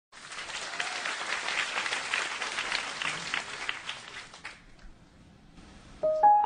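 Audience applauding, a dense patter of many hands clapping that dies away after about four and a half seconds. Near the end a piano begins playing.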